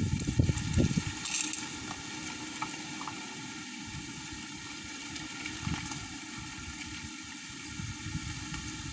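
Strong wind buffeting the microphone in gusts, a low rumbling noise that swells and fades, with a brief crackle about a second in.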